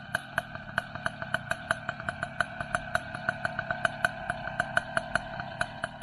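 Small motor running steadily, with two held tones under a fast, uneven clicking of about six clicks a second.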